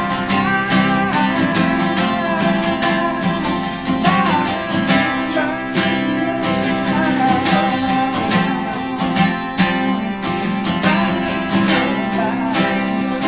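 Country band playing a song, led by strummed acoustic guitar in a steady rhythm.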